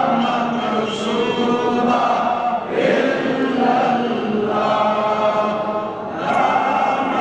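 Many men's voices chanting a devotional phrase together, in drawn-out, held lines that break briefly about three seconds in and again near six seconds.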